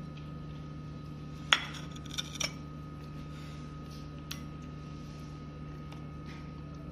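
A spoon stirring spiced yogurt in a ceramic bowl, knocking against the bowl in a few sharp clinks. The loudest clink comes about a second and a half in, with several lighter ones after. A steady low hum runs underneath.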